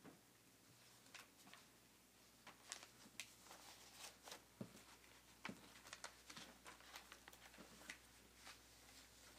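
Near silence: room tone with a low hum and scattered faint clicks and rustles of paper being handled.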